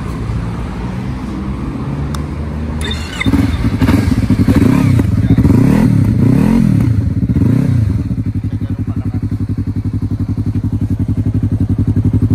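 Yamaha MT-03 motorcycle engine idling through an aftermarket slip-on muffler with its silencer left open, then revved in several quick blips from about three seconds in before dropping back to a steady idle.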